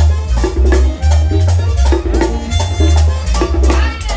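Merengue típico band playing, with a strong, repeating bass line under dense, driving percussion.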